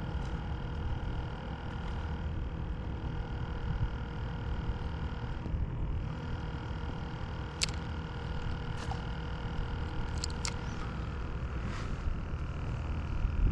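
Wind rumbling on the microphone, with a faint steady hum above it and a few sharp clicks: one a little past halfway and two close together a few seconds later.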